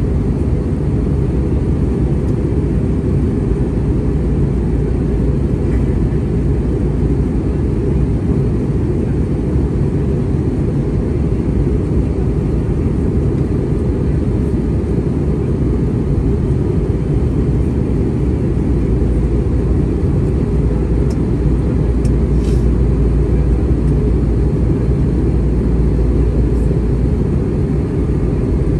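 Steady cabin noise of an Airbus A320-232 in flight: an even, deep rush of engines and airflow that does not change.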